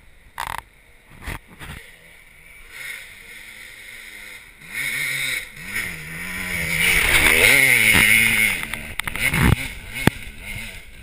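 Dirt bike engine revving as it climbs the trail toward the microphone. The pitch rises and falls with the throttle and the sound grows louder, from about five seconds in until it cuts off abruptly near the end. Before it there are a few scattered knocks.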